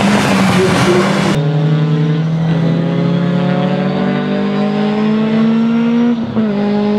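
Race cars on track, a rough noisy mix, then the Mercedes 190E Evo2 DTM's 2.5-litre straight-four racing engine pulling hard alone, its pitch rising steadily. About six seconds in the pitch drops briefly at a gear change, then climbs again.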